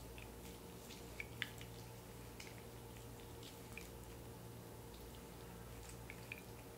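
Faint squish of a lemon half being squeezed and reamed with a spoon, its juice dripping into a glass jug of liquid: a scattering of small wet clicks and drips.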